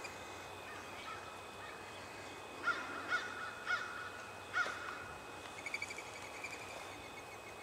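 A bird gives four short calls in a little over two seconds, in outdoor quiet. A faint run of quick high chirps from a smaller bird follows near the end.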